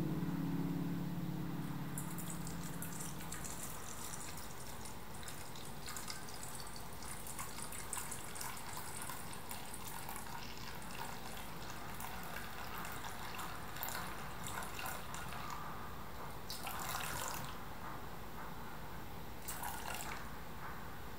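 Hot brewed coffee poured in a thin stream from a glass server into a stainless steel bowl, splashing steadily into the pooling liquid. It starts about two seconds in and grows louder twice near the end.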